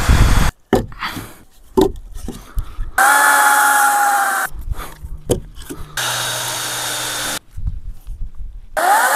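Power drill driving screws into wood in separate runs of about a second and a half, each starting and stopping abruptly, with a whine that rises as the motor spins up near the end; small knocks of handling between the runs.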